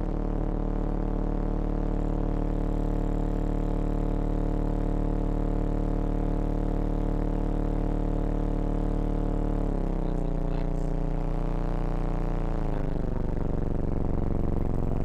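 Car audio system playing a deep, droning bass tone through its subwoofer, heard inside the car's cabin. The pitch steps down about ten seconds in and slides lower again near the end.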